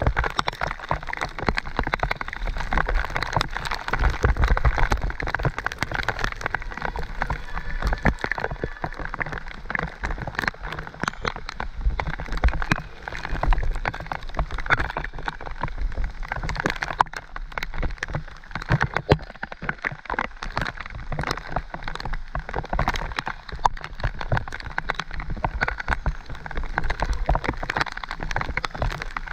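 Mountain bike riding a wet, muddy singletrack in heavy rain: steady rain noise with a constant stream of small clicks and knocks from the bike on the rough trail, over a low rumble.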